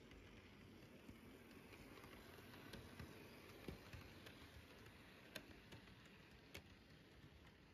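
Model train, a diesel locomotive pulling freight cars, rolling past on the track: a faint rumble that swells as it passes, with a few sharp clicks from the wheels on the rails.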